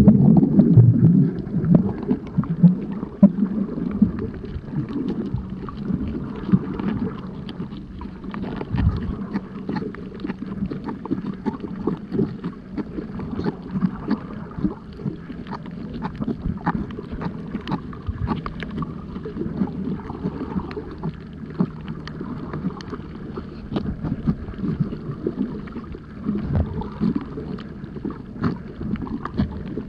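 Muffled underwater noise picked up by a camera below the surface: a low rush of moving water with many small clicks and crackles, loudest with bubbling in the first second.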